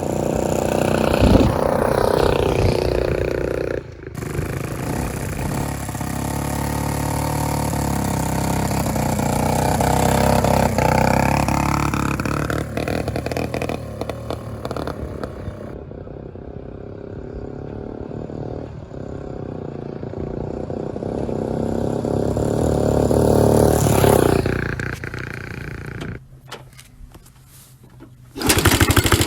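1965 Honda S65's small single-cylinder four-stroke engine running and revving, its pitch rising and falling, in several short clips cut together with abrupt changes.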